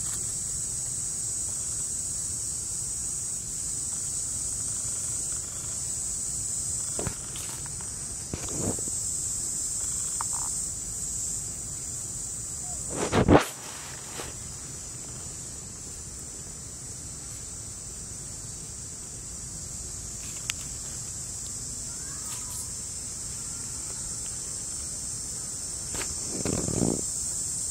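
Steady, high-pitched drone of insects, with a few brief louder noises breaking in; the loudest comes about halfway through.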